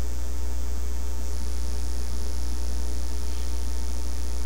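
Steady low electrical mains hum in the recording, with faint hiss above it.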